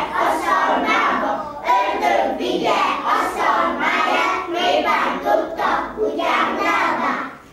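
A group of young children singing together in unison, a loud, ragged chorus of many small voices that stops abruptly near the end.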